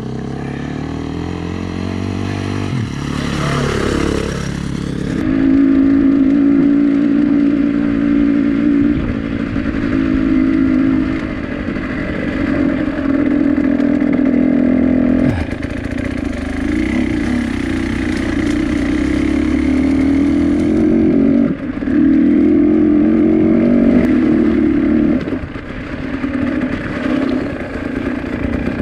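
A vehicle engine running at high revs: its pitch dips and climbs a few seconds in, then holds steady, breaking off and picking up again several times.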